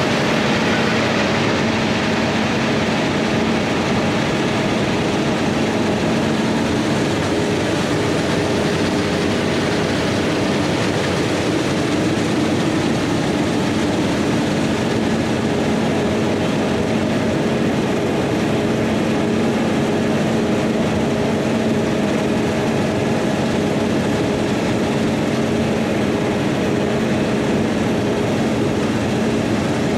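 Large diesel farm machinery running steadily under load, a constant engine hum with a steady low drone and no change in speed.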